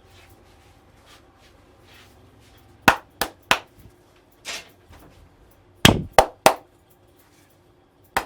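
Sharp slapping strikes of Indian head-massage percussion, hands striking the client in quick sets of three. There are two sets, about three strikes a second, the second the loudest, a softer hit between them, and one more strike at the end.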